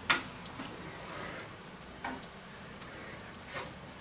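Food frying with a steady quiet sizzle, one sharp click at the start and a couple of light knocks later on.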